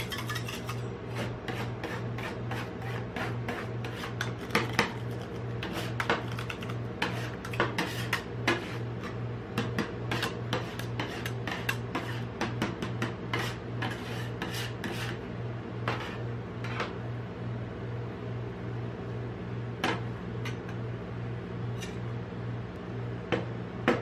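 Steel spatulas chopping and scraping freezing ice cream mix on a metal cold plate: rapid clicks and scrapes, dense at first and sparser in the second half. A steady low pulsing hum runs underneath.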